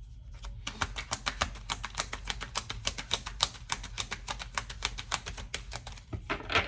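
Tarot cards being shuffled by hand: a rapid, even run of crisp clicks, about six a second, that stops about six seconds in.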